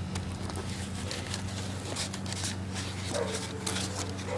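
Handling noise of the unboxed airsoft rifle and its packaging: scattered clicks and rustles over a steady low hum, with a brief falling-then-level whine about three seconds in.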